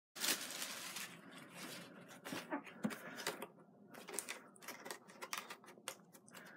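Crinkling and rustling of packaging being unwrapped by hand, with many sharp crackles. It starts suddenly just after the start.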